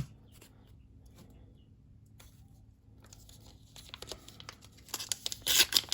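A trading-card pack's wrapper being torn open and crinkled. It starts faintly about halfway in and gets louder near the end.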